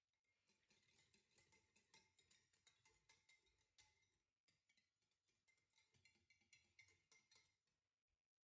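Near silence, with faint scattered small ticks and crackle.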